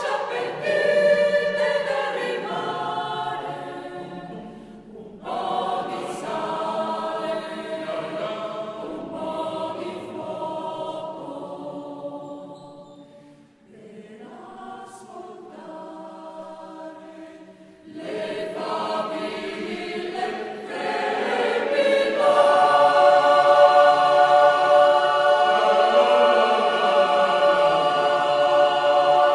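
Choir singing a mountain song in slow phrases. It drops to a softer passage about halfway through, then swells into a long, loud held chord near the end.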